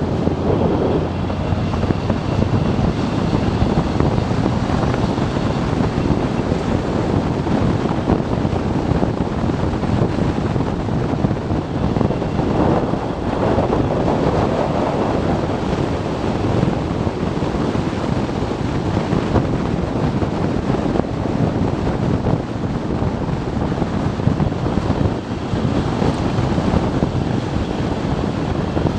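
Wind rushing over the microphone of a motorcycle riding steadily at road speed, with engine and road noise underneath.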